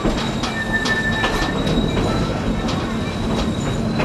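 Narrow-gauge passenger train cars rolling over the rails, with the wheels squealing briefly on a curve about a second in and scattered rail clicks over a steady rumble.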